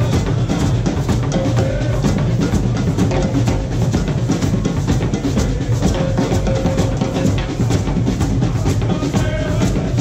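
Guadeloupean carnival drum band playing a fast, driving rhythm, with dense repeated drum strokes and a few short held notes over them.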